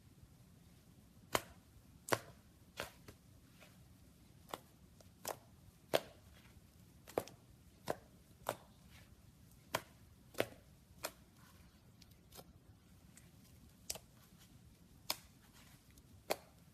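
A knife chopping down onto a cutting board: about fifteen sharp, separate strokes at an uneven pace.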